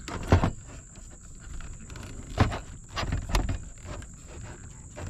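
Handling noise from a plastic backup camera and its USB cable: a few sharp clicks and knocks, the loudest just after the start and about two and a half seconds in, with light rustling between. A steady high-pitched tone sounds underneath.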